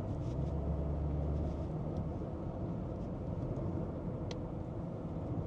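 Steady low road and engine rumble heard inside a moving car's cabin, a little stronger for the first second or so.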